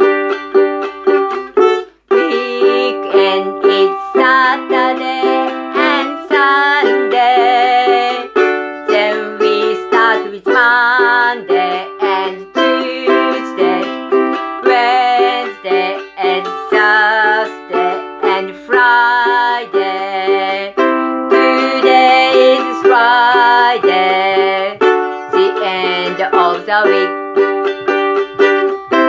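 Ukulele strummed in a steady rhythm through an instrumental verse of a simple song. A wordless voice, closed-mouthed, hums the melody along with it.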